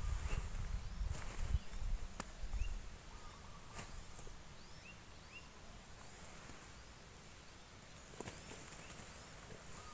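Small birds chirping, short rising calls repeating every second or so, over a low rumble in the first three seconds and a few sharp clicks.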